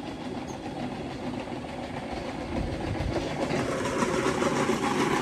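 Paddy-field drainage pump motor running with a steady mechanical rumble, pumping water out of the field; the rumble grows louder from about halfway through.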